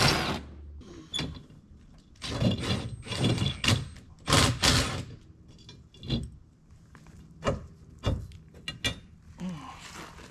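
Irregular metal clanks, knocks and scrapes as a steel brace is worked loose and pulled out of a sheet-metal enclosure panel.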